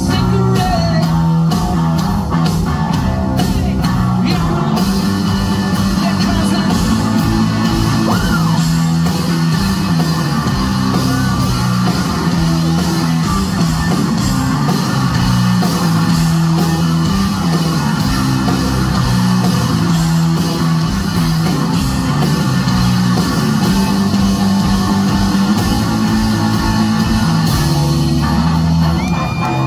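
Live rock band playing loud: a repeating low, stepping electric guitar riff pitched down an octave like a bass line, with bass guitar, pounding drums and singing over it. Heard through a phone's microphone from inside the crowd.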